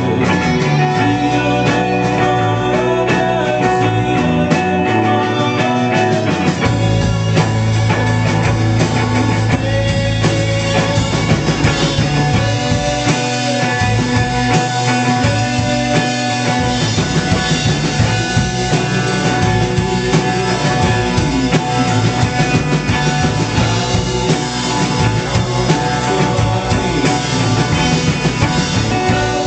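Live rock band playing loud: guitar over bass and drum kit, with the low end growing heavier about seven seconds in.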